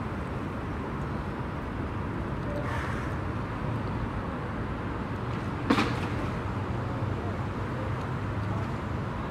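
Steady outdoor city street background with a low traffic rumble, and one sharp click a little past halfway.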